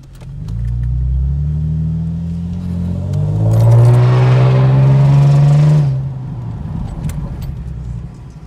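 Chevrolet Camaro V6 with its mufflers cut off (straight-piped exhaust) accelerating: the exhaust builds over the first few seconds, rises in pitch and is loudest from about three and a half to six seconds in, then drops back suddenly to a lower rumble as the throttle eases off.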